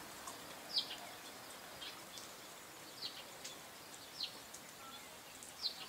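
A bird giving short, high, falling chirps about once a second over a quiet, steady background hiss.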